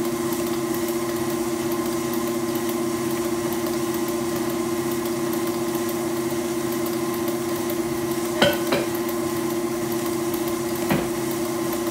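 Electric stand mixer motor running steadily with a constant hum while beating pound cake batter. Two short sharp knocks sound, one about two-thirds of the way through and one near the end.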